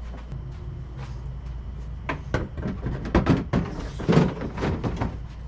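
Irregular knocks and clatter from working on a golf cart's body, plastic panels and tools being handled, over a steady low hum. The knocks are sparse at first and come thicker and louder from about two seconds in.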